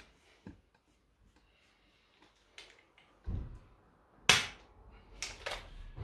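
Activator handheld spring-loaded chiropractic adjusting instrument firing against the patient's back: one loud sharp click about four seconds in, then two fainter clicks, with a dull thump just before.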